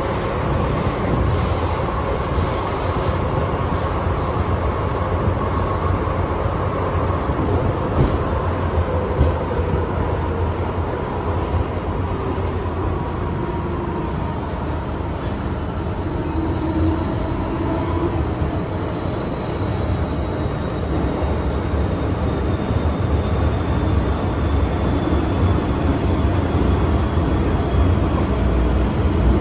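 Hong Kong MTR M-train heard from inside a passenger car while running between stations: a steady rumble of wheels on rail. A faint high whine slowly falls in pitch through the second half.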